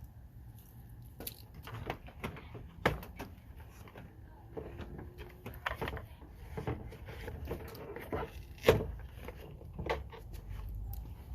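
Irregular clicks and knocks from handling the rear door and its plastic trim panel, with two sharper knocks about three seconds and nine seconds in.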